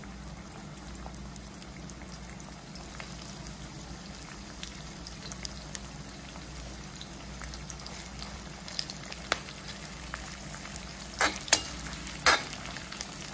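Sliced onions sizzling in hot oil in an iron kadai, a steady frying hiss as they begin to brown. Near the end a perforated metal spatula scrapes and knocks against the pan two or three times as the onions are stirred.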